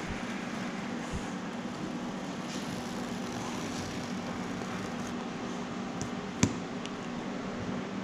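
Steady mechanical hum of a ventilation fan, with one sharp click about six and a half seconds in.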